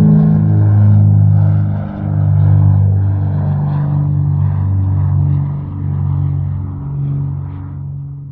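Propeller aircraft passing by at a distance: a steady engine drone that fades away over the last few seconds.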